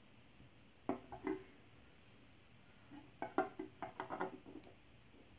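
Small steel skeleton-handle knife clicking and tapping against a wooden board as it is handled: a few knocks about a second in, then a quick run of clicks from about three to four and a half seconds.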